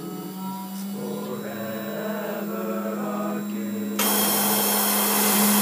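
iQ CNC router spindle running with a steady hum, then about four seconds in the engraving bit plunges into the workpiece and a sudden, much louder cutting noise takes over. A choir song plays underneath.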